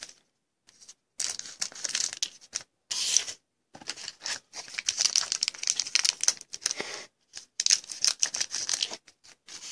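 Foil trading-card pack wrappers crinkling and tearing as a stack of 2015-16 Panini NBA Hoops packs is handled and cut open. The sound comes in short bursts of rustling with brief pauses, after a second of near quiet at the start.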